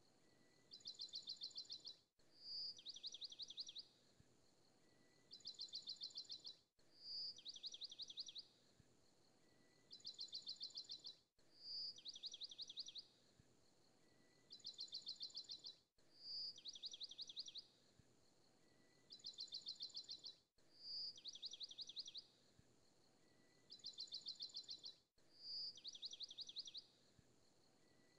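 A faint looped recording of bird chirps and fast trills, the same short phrase repeating about every four and a half seconds.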